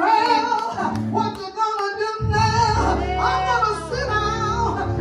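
A woman singing a gospel song into a microphone, backed by keyboard and guitar, with a low sustained note coming in about two seconds in.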